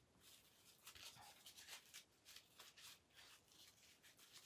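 Near silence, with faint, scattered rustling of a fabric ribbon being handled and tied into a knot.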